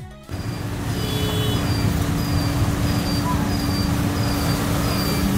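Steady street ambience: a low rumble and hum like traffic or an idling engine, with short high chirps repeating about every two thirds of a second. Intro music cuts off at the very start.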